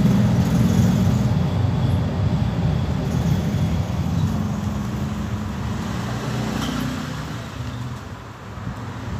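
Electric blender motor running steadily as it blends eggs and oil into mayonnaise, a dense low hum that eases off a little near the end.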